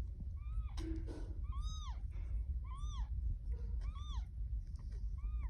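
Newborn kitten mewing: about five short, high-pitched mews, each rising and falling in pitch, roughly one a second.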